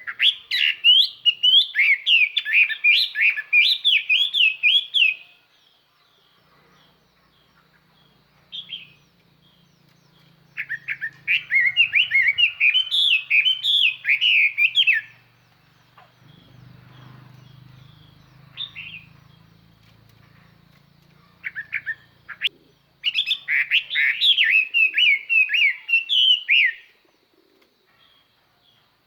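Caged decoy Chinese hwamei (họa mi) singing in three loud bouts of rapid, varied whistled phrases, each about four to five seconds long, with a few short single notes between the bouts. This is a decoy's song, used to call in wild hwamei. A faint low hum sits under the middle of the stretch.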